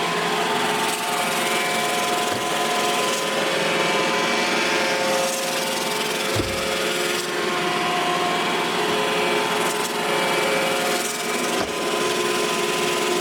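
iRobot Roomba i7 robot vacuum running, its suction motor and brushes making a steady whir with a few steady whining tones. A few brief low thumps sound along the way.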